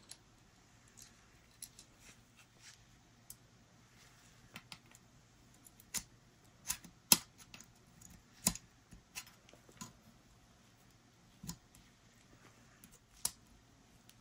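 Scattered light clicks and taps of small steel parts as a Taurus 856 revolver's hand is worked into place against its spring and plunger, the loudest clicks in the middle.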